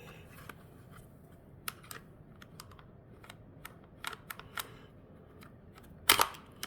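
Scattered small clicks and taps of a car door latch and lock actuator assembly being handled, its levers and lock mechanism worked by hand, with a louder clack about six seconds in.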